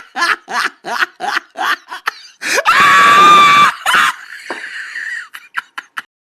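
A person laughing in rapid, even bursts, about four a second, then letting out a loud high-pitched scream that lasts about a second. A few faint clicks follow before the sound cuts off.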